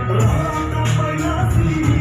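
Music with a heavy bass line and steady beating percussion, played through a sound system of 15-inch subwoofers and 6-inch speakers.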